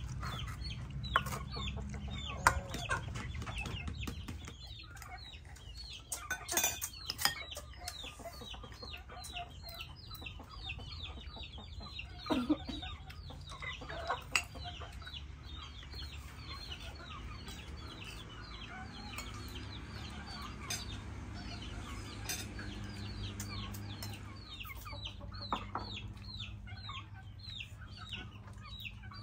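Chickens calling in a steady stream of short, high, falling peeps, with occasional metallic clinks of a cooking utensil against a pan during stir-frying, over a low steady hum.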